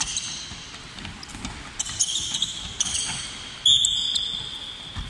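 Athletic shoes squeaking on a hardwood court as players shuffle sideways, with several high squeaks, the loudest just before four seconds in, and handballs thudding as they bounce and are caught.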